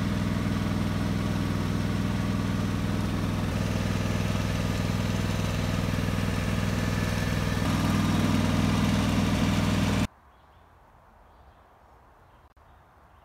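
17 hp Kawasaki engine of a John Deere X300 lawn tractor running steadily, a little louder from about eight seconds in. The sound cuts off abruptly about ten seconds in, leaving quiet outdoor background with a few faint ticks.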